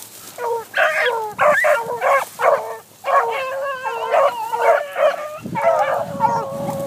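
Beagles baying as they run a cottontail rabbit, a steady string of howling bawls with no real pause, the calls at times overlapping: hounds giving voice on the rabbit's scent trail.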